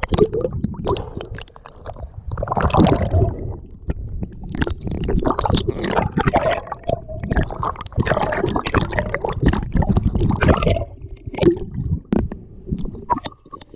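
Water sloshing, splashing and gurgling around a camera held right at the surface, half in and half out of the water, as a spearfisher swims. It comes in irregular surges and eases briefly about eleven seconds in.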